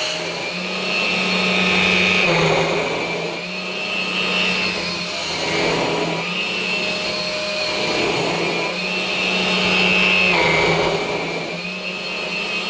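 Numatic Hetty Quick cordless stick vacuum running with a steady high motor whine and hum. The sound swells and eases every couple of seconds as the motorised floor head is pushed back and forth over the carpet.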